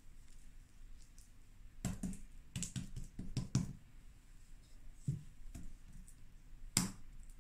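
Light taps and knocks of hands patting and smoothing butter over rolled-out roti dough on a countertop: a cluster of them about two seconds in, a few single ones after, and a sharper knock near the end.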